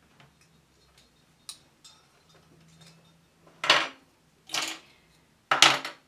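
Metal parts of a flatbed knitting machine being handled: a few light ticks, then three short, loud metallic clacks about a second apart near the end.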